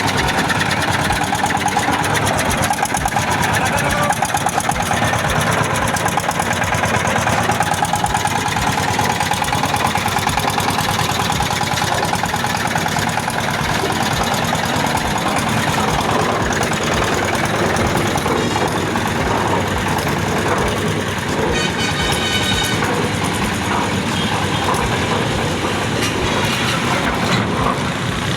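Reconditioned concrete mixer running steadily on a test run, its engine going at an even, fast-pulsing beat.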